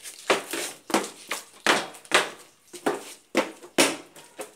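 Metal tank bottom being struck over and over, as in cutting it out with hammer blows: a quick, irregular string of sharp knocks, about two to three a second.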